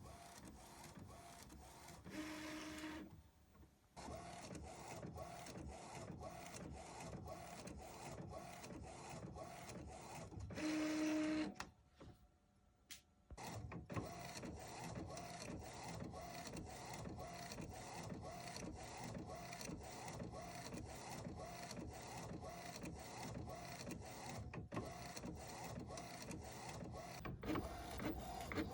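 Epson Stylus Pro 3880 inkjet printer printing, its print head sweeping back and forth in an even rhythm of about two strokes a second. Twice, about two seconds in and again about ten seconds in, a louder steady whir sounds for about a second, followed by a brief pause before the strokes resume.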